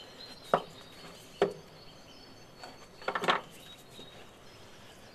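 Knife and small cardboard box handled on a wooden table as the box's seal is cut and the box opened: two single sharp knocks about a second apart, then a quick cluster of clicks and taps about three seconds in.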